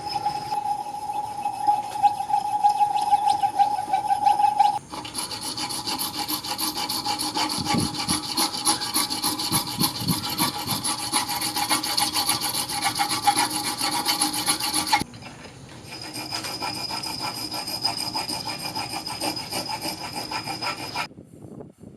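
Steel knife blade, cut from a chainsaw bar, being worked with an abrasive tool: a steady rasping scrape of metal. It comes in three cut-together stretches, changing abruptly about five seconds in and again about fifteen seconds in, and drops away shortly before the end.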